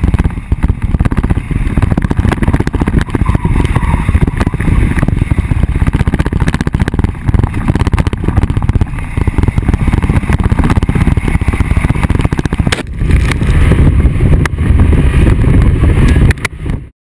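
Off-road vehicle driving fast over a rough dirt track, a dense rough rumble of running gear and ground noise. It grows louder about thirteen seconds in and cuts off abruptly just before the end.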